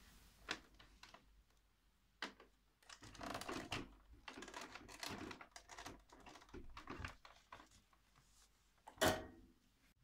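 Power cord being unwound from the cord hooks of a Hoover Sovereign upright vacuum cleaner: a series of clicks and knocks as the cord slaps against the plastic body, with one sharp knock about nine seconds in.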